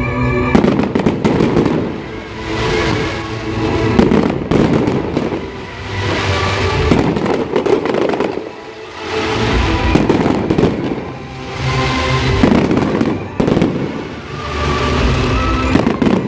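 Aerial fireworks bursting in volleys about every two seconds: loud bangs, each cluster trailing into crackling, with music playing underneath.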